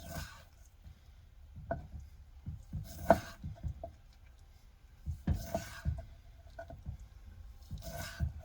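Knife working through raw sea bass on a cutting board: a few short swishing strokes with soft knocks of the blade on the board, the sharpest knock about three seconds in.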